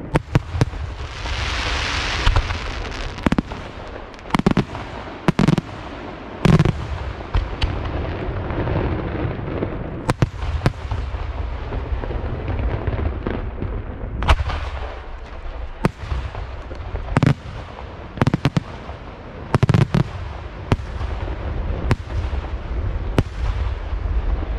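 Lieto Carmine e Figli aerial firework shells bursting: about twenty loud bangs at irregular spacing. A hissing crackle runs from just after the start to about three seconds in, over a continuous low rumble.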